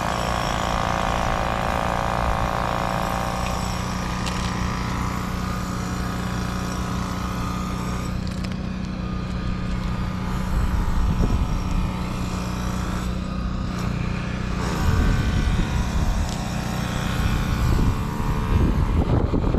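An engine running steadily in the background, with wind rumbling on the microphone.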